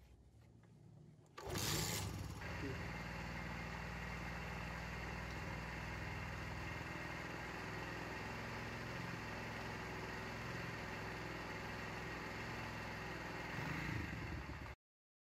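Honda CD 70's small single-cylinder four-stroke engine kick-started, catching about a second and a half in and then idling steadily. It grows briefly louder near the end, then cuts off suddenly.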